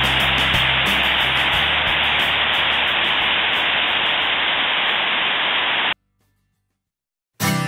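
Mountain stream cascading over rocks, a steady rush of water that cuts off suddenly about six seconds in. After a short silence, acoustic guitar music starts right at the end.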